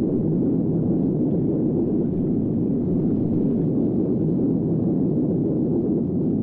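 Deep, steady rumble of a huge explosion, a sound effect for the Halifax Explosion of the munitions ship Mont-Blanc.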